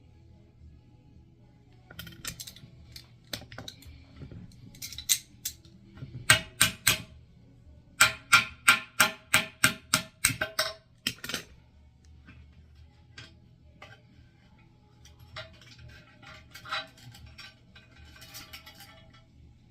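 Sharp clicks and clacks of tools on a toilet's tank bolts and hardware as the tank is taken apart to replace its worn rubber gaskets. There are scattered clicks, then a fast even run of about ten loud clicks, roughly three a second, in the middle.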